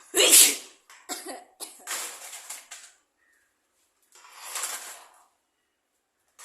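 A person coughing in fits: a loud harsh cough right at the start, a run of further coughs over the next two seconds, and one more about four and a half seconds in. The cough is brought on by trying to force a sneeze.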